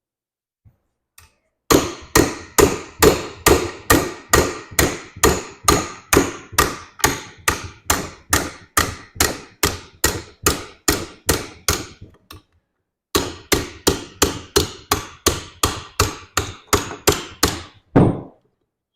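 Steady hammer blows, about two to three a second, driving a seized crankshaft out of a blown-up Polaris 850 two-stroke snowmobile engine. The blows stop for about a second, then go on for another run.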